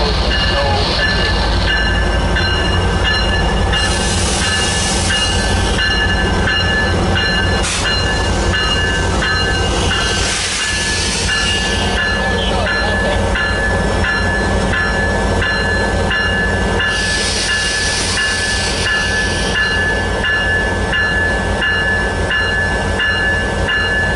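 EMD F59PHI diesel locomotive of an Amtrak Pacific Surfliner running alongside the platform with a deep steady engine rumble. Its bell rings at a steady beat, about one and a half strokes a second, and three bursts of hissing rise and fade.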